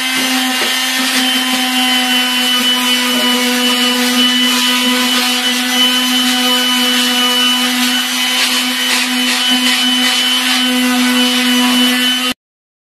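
Small handheld electric sander running against bare, stripped wood, a steady motor hum with a sanding hiss over it. It stops abruptly near the end.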